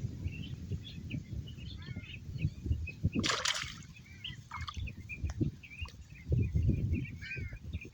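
A single water splash about three seconds in, over birds chirping and low rumbling noise.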